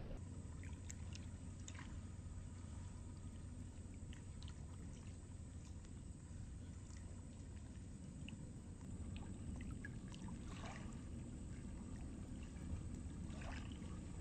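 Faint outdoor ambience: a steady low rumble like wind on the microphone, with scattered faint clicks.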